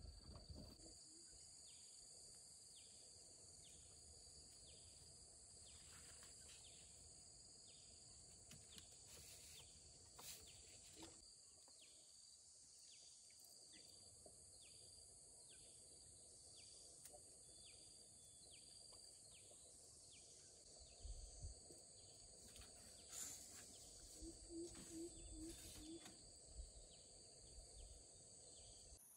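Faint insect chorus: a steady high buzzing with a pulsing chirp about twice a second. A few soft low thuds come in the last several seconds.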